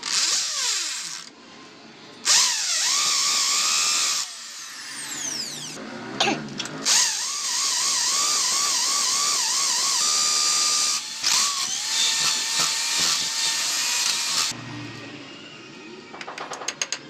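Corded electric hand drill running in several bursts, drilling holes through a strip of orange PVC pipe, its motor whine wavering under load and winding down between bursts. Near the end come a run of quick hammer taps.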